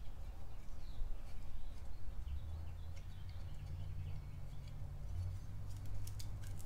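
Faint handling noise of steel bumper trim plates and push-in plastic clips being fitted by hand, with a few sharp clicks about six seconds in, over a low steady hum.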